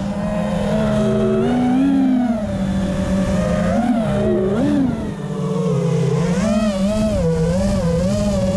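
FPV quadcopter's electric motors and propellers whining as heard onboard, the pitch rising and falling over and over with the throttle, over a low rumble of wind noise.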